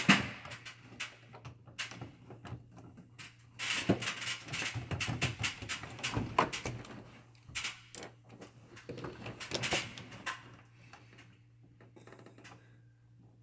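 Hands and a hand tool working in a truck's engine bay: irregular clicks, knocks and scraping against metal and plastic parts. The noise is busiest from a few seconds in to about ten seconds, then dies down to a few faint ticks over a steady low hum.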